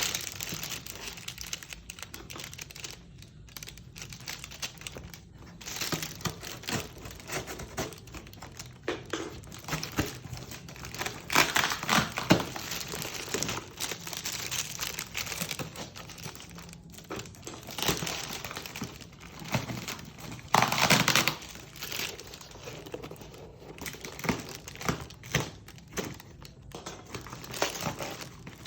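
Packaging wrap crinkling and rustling in irregular bursts as an item is unwrapped by hand, with the loudest bursts about 11 and 20 seconds in.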